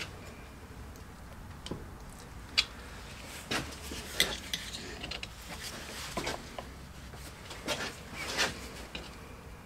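Metal tools and parts clinking and scraping against each other in irregular knocks, about ten over several seconds, the sharpest about two and a half and four seconds in.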